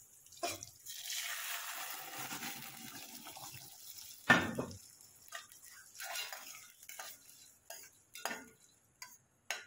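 Boiled raw mango slices and their water hissing in hot ghee and spices in a stainless steel pan, the sizzle fading over about three seconds. Then one loud metal clank about four seconds in, followed by light clinks and scrapes of a steel ladle stirring in the steel pan.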